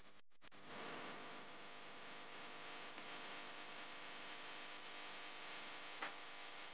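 Faint steady hiss with a low hum, and a brief click about six seconds in.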